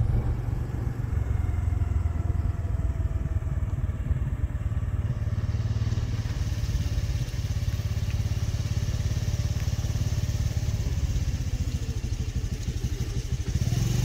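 A motor vehicle's engine running steadily as it travels along, a continuous low rumble under a haze of road and air noise.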